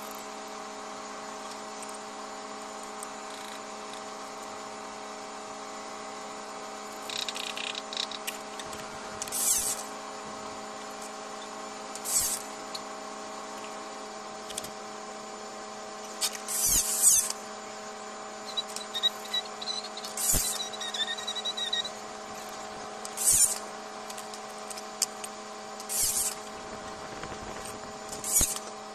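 A steady machine hum runs throughout. From about a third of the way in, short hissy scraping sounds come every few seconds as tile pieces are handled and worked.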